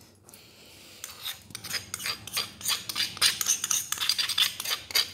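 Utensil scraping and clinking against a bowl, emptying ground whole-spice powder into a pot of dal. The quick scrapes and clinks start about a second in and come several times a second.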